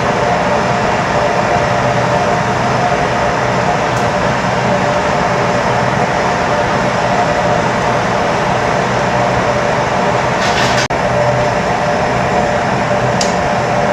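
Steady roar of gas burners in a glassblowing hot shop, with a hum running underneath, briefly cut off once near the end.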